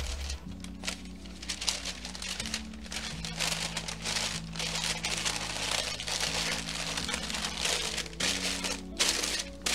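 White sandwich wrapping paper crinkling and rustling in irregular bursts as a breakfast sandwich is folded up and tucked into it, over background music with held low notes.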